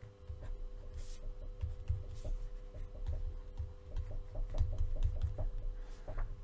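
Stylus writing on a drawing tablet: a run of light taps and scratches with soft low knocks, over a steady electrical hum.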